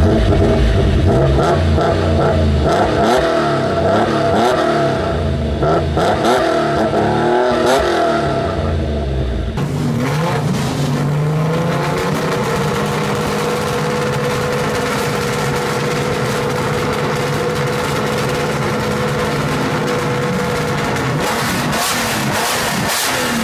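Nissan S20 twin-cam, 24-valve straight-six on triple carburettors. First heard at the exhaust of a road-going Hakosuka Skyline GT-R, idling and being revved, its pitch rising and falling. After a cut about ten seconds in, the engine of a Skyline 2000GT-R race car warms up: it climbs to a steady fast idle, with a few throttle blips near the end.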